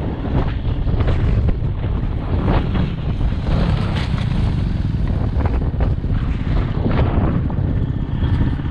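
Loud wind buffeting the microphone: a dense low rumble with frequent short gusts.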